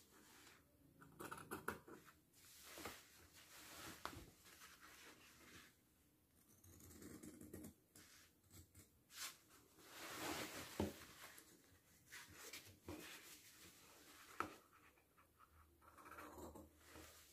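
Quiet, irregular snipping of scissors cutting through fabric, with the fabric rustling and a few sharp clicks of the blades.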